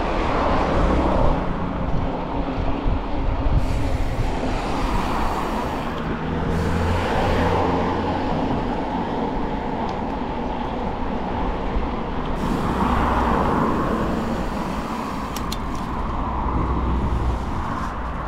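Cars passing one after another on the road alongside, each swelling and fading, over the steady rush of a mountain bike being ridden along a paved path.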